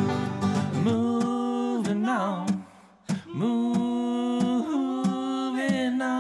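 Americana song passage with a voice holding long wordless notes, sliding between pitches, and a short gap about halfway through.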